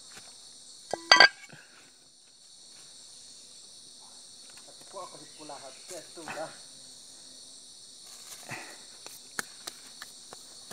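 Steady high-pitched insect chorus in the background, with one sudden loud sound about a second in, faint voices in the middle and a few light clicks near the end.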